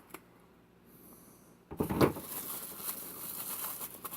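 Plastic packaging crinkling and rustling as it is handled, starting suddenly a little under two seconds in after a quiet stretch with a couple of faint clicks.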